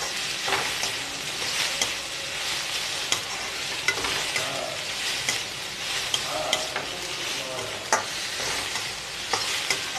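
Chopped onions and spring onions sizzling in oil in a stainless-steel kadai, stirred with a spatula that scrapes and clicks against the pan now and then as they are lightly sautéed.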